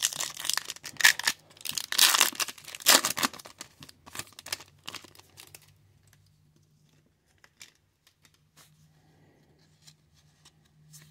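Foil wrapper of a hockey trading-card pack being torn open and crinkled for about the first five seconds, dense and crackly. After that it is quiet apart from a few faint clicks as the stack of cards is handled.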